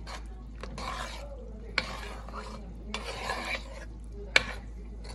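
A spoon stirring chicken pieces into thick chicken tikka masala sauce in a pan, in three long scraping strokes, with two sharp clicks of the utensil against the pan.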